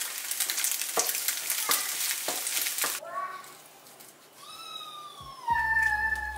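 Bread buns toasting in an oiled frying pan next to scrambled eggs: steady sizzling with sharp crackles and pops. It cuts off about three seconds in and gentle music begins: a high gliding tone, with deep bass notes joining near the end.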